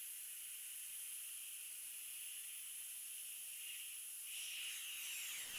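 Steady faint hiss of heavy rain, swelling into a louder rushing noise near the end.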